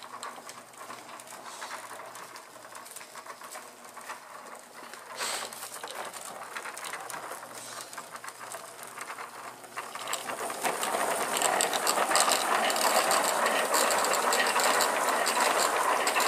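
Homemade plywood power wheel with a roller-chain drive spinning up: chain and sprockets clatter in a fast, continuous run of clicks that grows much louder about ten seconds in.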